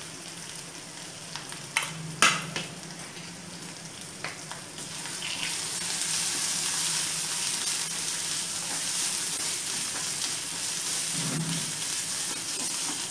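Ground onion-and-spice masala paste frying in mustard oil in a nonstick kadhai, sizzling steadily while a spatula stirs and roasts it. A few light knocks come in the first few seconds, and the sizzle grows louder about five seconds in.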